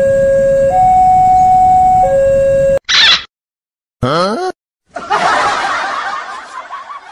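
A two-tone hi-lo siren, alternating between a lower and a higher note about every second and a half, cuts off about three seconds in. It is followed by edited-in sound effects: a brief hiss, a short rising pitched call, and a noisy rush that fades away.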